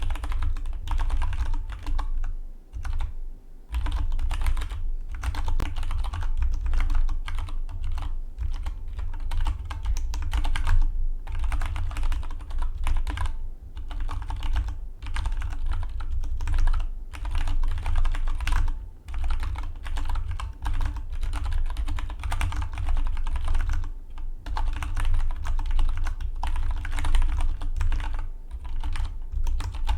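Fast, continuous typing on a Dygma Defy split mechanical keyboard: a rapid stream of key clacks, broken by a few brief pauses.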